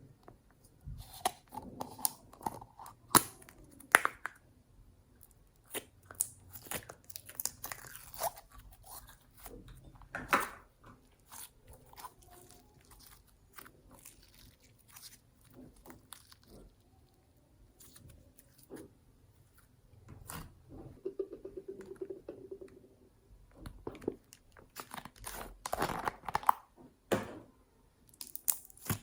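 Slime being squished, pressed and stretched by hand, giving irregular sticky clicks, crackles and pops. A short squelching buzz of trapped air comes about two-thirds of the way through.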